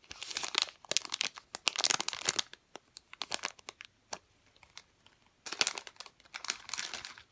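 Plastic packaging of a toy squishy being handled and crinkled, in several bursts with a quieter pause partway through.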